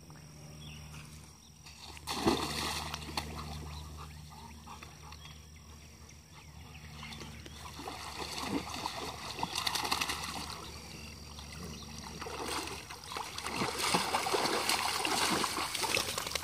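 Pond water splashing, with one loud splash about two seconds in and choppy splashing that grows louder toward the end.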